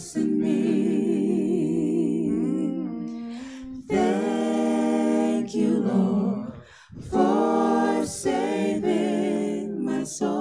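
Small vocal group singing a slow worship song a cappella, several voices in harmony with no instruments. Long held notes with vibrato, breaking off briefly twice between phrases.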